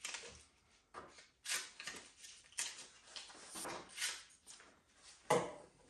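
Brown gummed paper tape being cut from the roll with scissors and handled: a string of short, irregular papery snips and rustles, the sharpest one near the end.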